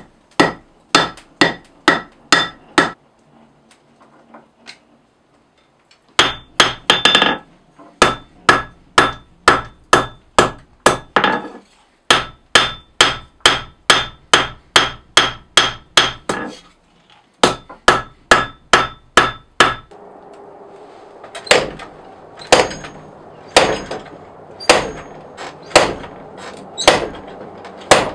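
A hand hammer forges red-hot file steel on an anvil in runs of steady blows, about two a second, with a ringing note on each strike and short pauses between runs. After about twenty seconds the blows slow to about one a second and ring less, over a steady background hiss.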